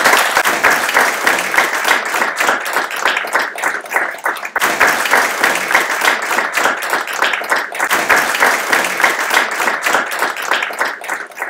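Audience applauding: dense, steady clapping that dips briefly about four seconds in and fades out near the end.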